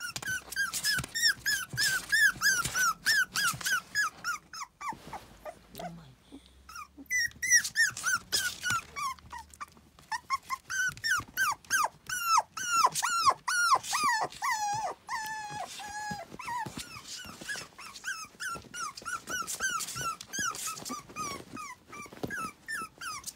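Toy poodle puppies whining and yipping in quick runs of short, high, falling calls, several a second. They pause briefly a few seconds in, and one longer drawn-out whine comes about midway.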